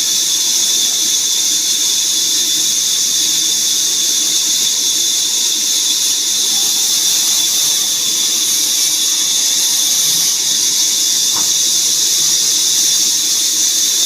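Woodworking saw machine running with a steady, high-pitched whine and hiss that holds unchanged throughout.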